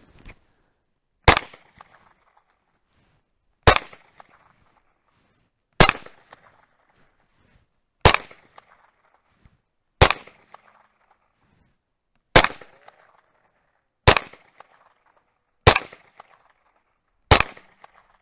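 Ruger PC Carbine 9mm semi-auto rifle fired in slow, deliberate single shots: nine shots about two seconds apart, each trailing off in a short echo.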